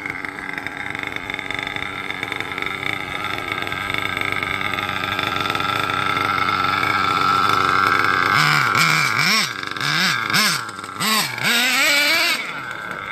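HPI Savage XL nitro RC monster truck engine running steadily and slowly getting louder. From about eight seconds in it is revved in a series of short rising-and-falling throttle blips as the truck drives off.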